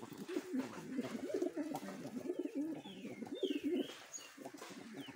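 A flock of domestic pigeons cooing, many calls overlapping, with a few short high chirps about halfway through.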